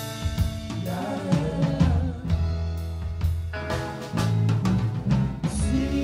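A band playing live: electric guitar over a drum kit, with regular drum and cymbal hits.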